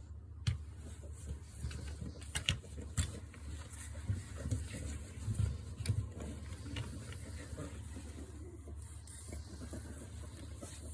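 A puppy moving about, making scattered light taps and scratches that are busiest in the first half, over a steady low hum.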